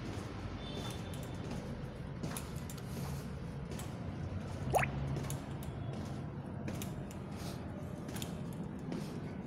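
Faint footsteps going down concrete stairs over a steady low hum, with one short squeak rising quickly in pitch about halfway through.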